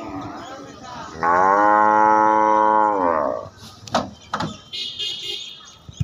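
Cattle mooing: one long, steady call of about two seconds, followed by a few sharp knocks as a bull jumps down from a pickup truck's bed.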